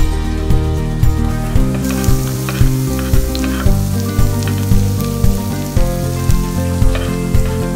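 Diced onion sizzling in hot oil in a frying pan, the sizzle growing about two seconds in. Background music with a steady beat plays over it.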